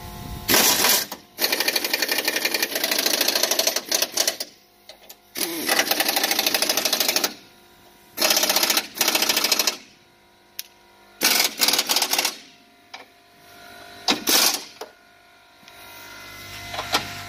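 Pneumatic impact wrench hammering in repeated bursts, a second or two each at first and then shorter blips near the end, as it runs in and tightens the bumper mounting bolts.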